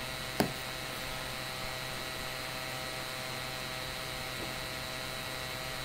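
Steady electrical hum with a few faint steady tones, broken by a single sharp click about half a second in.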